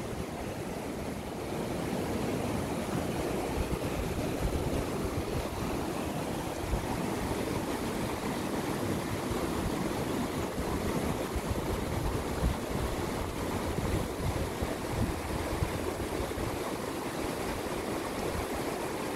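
Whitewater rapids of a small mountain river rushing steadily over boulders.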